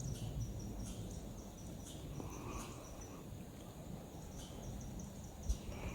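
Insects chirping outdoors: short, high-pitched chirps repeating at uneven intervals, with a low rumble beneath.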